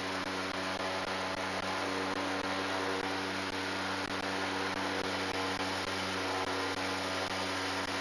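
ICON A5 amphibian's Rotax 912 iS engine running steadily: a constant drone with hiss.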